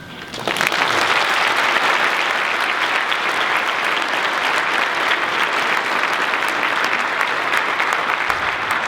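Audience applauding, starting just as the chorus's final note dies away and tapering near the end.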